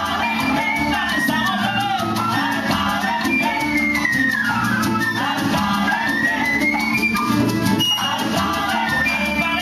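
A Cuban son band playing live, with maracas shaken in time over a steady bass line.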